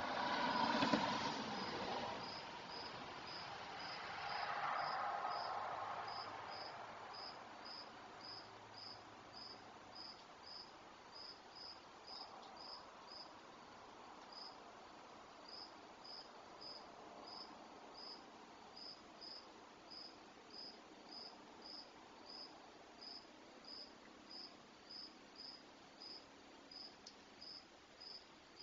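A cricket chirping steadily, about two short high chirps a second. In the first two seconds a louder rushing noise with a knock about a second in, and another rushing swell around five seconds in.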